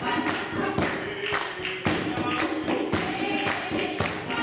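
A choir singing held notes over a steady beat of thumps, about two a second.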